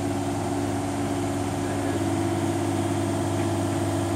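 Kubota mini excavator's diesel engine running at a steady speed, a constant even hum.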